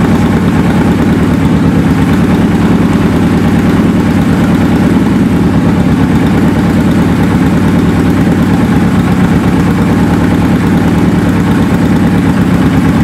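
Suzuki GS550's air-cooled inline-four engine idling steadily with an even, rapid firing pulse. It is running on its first start after a top-end rebuild.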